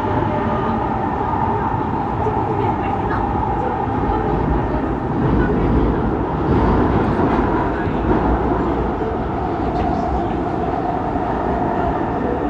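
SMRT C151 metro train running, heard from inside the carriage: a steady rumble of wheels on rail with a whine held near one pitch, which drops slightly near the end.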